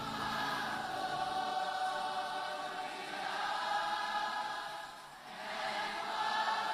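Church congregation singing a worship chorus without accompaniment, many voices blended together. The singing fades briefly about five seconds in, then swells into the next phrase.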